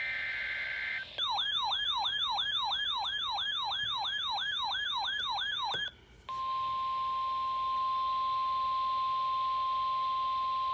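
End of a NOAA Weather Radio SAME data burst: a rapid two-tone digital warble. It gives way to a warbling electronic alert siren that sweeps upward about three times a second for some five seconds. After a brief break comes the steady 1050 Hz Weather Radio warning alarm tone, which signals that a warning message follows.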